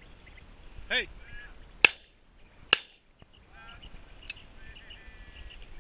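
Two shotgun shots fired a little under a second apart, each a sharp crack with a short ringing tail.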